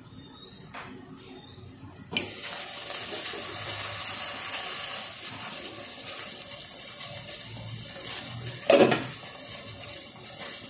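Pot of sinigang broth at a rolling boil: about two seconds in the glass lid comes off with a clink and the bubbling and hiss of the boiling water become loud and steady. Near the end, a brief loud clunk.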